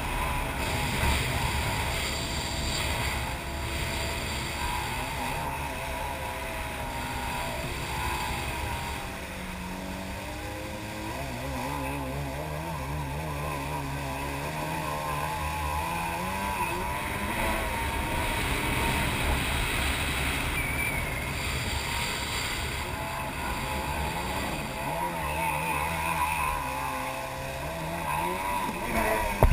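Jet ski engine running under way, its pitch rising and falling with the throttle, over a steady rush of wind and water.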